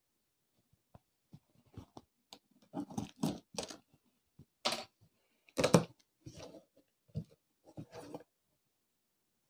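Cardboard subwoofer box being handled and opened: irregular crackles, scrapes and rustles of the cardboard and its taped seal. The loudest is a sharp crackle a little past halfway.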